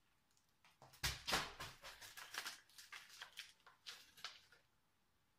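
Air-filled plastic packaging being pulled off a fishing rod: a run of crinkling and rustling with sharp clicks, starting about a second in and dying away near the end.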